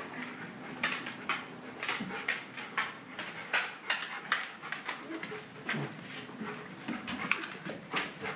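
A large dog sniffing and panting at close range, in short irregular puffs of breath, with a few brief faint whines in the second half.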